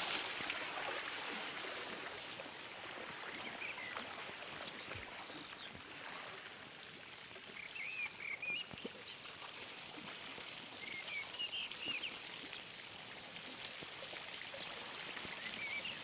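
Steady water sound of a swimming pool, a soft even hiss of lapping water, with small birds chirping briefly a few times.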